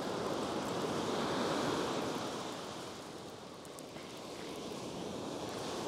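Surf washing on the beach: a steady rush of breaking waves that swells over the first couple of seconds, then eases off.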